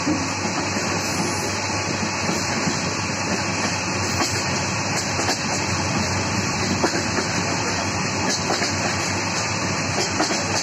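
Steady running noise of a moving passenger train heard from inside the carriage, with a few sharp clicks scattered through it.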